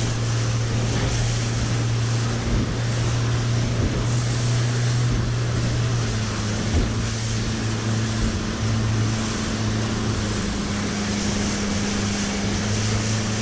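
Yamaha outboard on a small fibreglass runabout running at a steady cruising speed, a constant low engine tone. Wind and rushing water from the hull cutting through the chop run under it.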